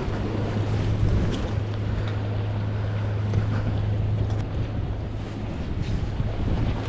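Steady low hum of a boat engine running, with wind noise on the microphone; the hum fades about four and a half seconds in.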